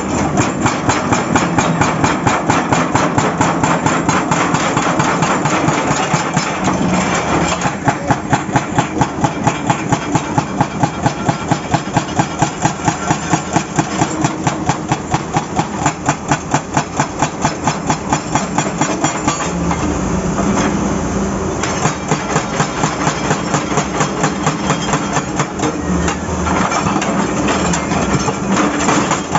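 Excavator-mounted hydraulic breaker hammer pounding asphalt, a rapid run of blows at about four or five a second over the excavator's diesel engine running. The blows pause for a couple of seconds about twenty seconds in while the engine keeps running, then resume.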